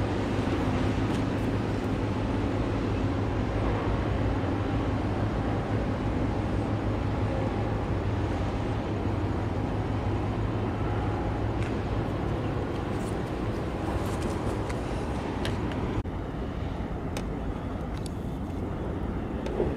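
Steady low engine drone with a hum from a large container ship passing close by. After a cut near the end it gives way to a lighter, hissier ambience with a few faint clicks.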